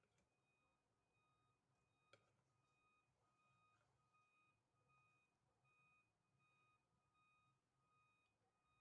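Near silence, with a faint electronic beep repeating about twice a second and a single click about two seconds in.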